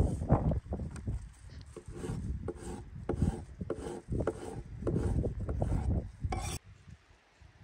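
Large kitchen knife slicing raw peeled potatoes into rounds on a wooden cutting board, each cut ending in a knock of the blade on the wood, at about two to three cuts a second. The cutting stops near the end.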